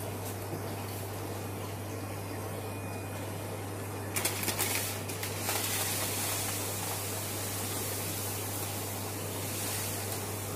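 Dry aquarium sand being poured from a bag into an empty glass tank: a steady hiss of falling grains from about four seconds in, starting with a few rattling clicks. Under it runs a steady low hum.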